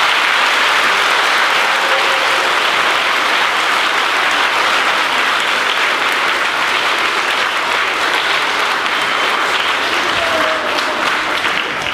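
Large audience clapping steadily, easing off slightly near the end.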